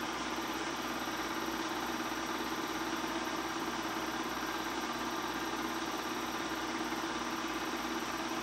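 Bell & Howell 253-A 8mm film projector running, a steady, unchanging mechanical hum.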